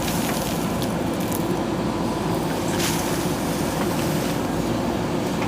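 JCB backhoe loader's diesel engine running steadily, with a couple of faint clicks over it.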